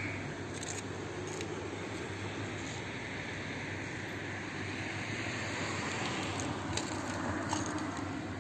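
Steady outdoor background noise with a low hum that swells and eases off in the middle, with a few small clicks and taps, mostly in the second half, as food is put down on the roof.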